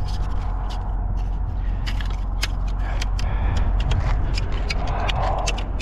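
Steady low rumble of an idling engine, under a run of small clicks and scrapes from handling.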